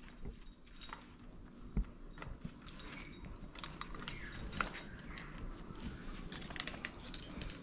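Small metal ornaments and beads hanging from a wooden baby cradle, and bangles on the wrist handling them, clicking and jingling lightly in an irregular patter that grows busier in the second half, with cloth rustling.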